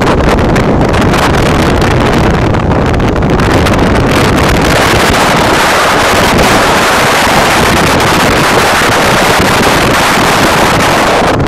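Wind buffeting the camera microphone: a loud, steady rush of wind noise, growing a little stronger through the middle.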